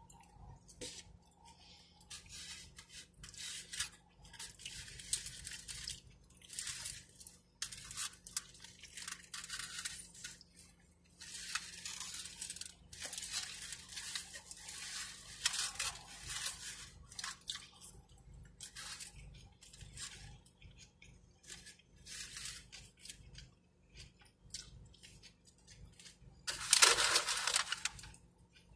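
Close-up eating sounds of a burrito being chewed: irregular, short, wet mouth noises that come and go throughout. Near the end there is a louder crinkling burst from the aluminium foil wrapper.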